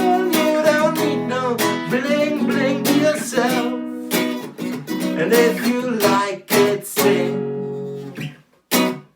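Acoustic guitar strumming chords with a singing voice over it; near the end the playing breaks into short, separate strummed chord stabs with brief silences between them.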